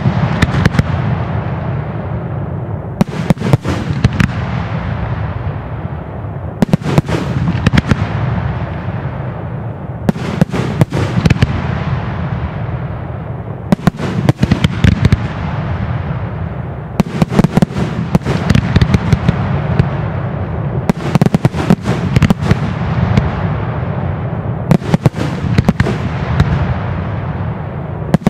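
Fireworks display: a cluster of rapid sharp bangs about every three and a half seconds, with a continuous rumble and crackle between the clusters.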